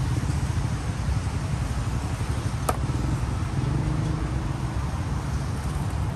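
Steady rumble of passing road traffic, with one sharp clink a little under three seconds in.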